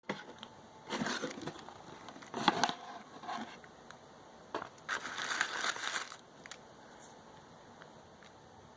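Packaging crinkling and rustling as a box is handled and opened, in several short bursts, the loudest about two and a half seconds in.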